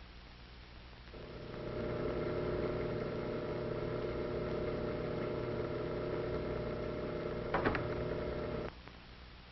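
A machine's motor hum, with several steady pitches, starts up about a second in and holds steady. There is a brief clatter near the end, then it cuts off abruptly.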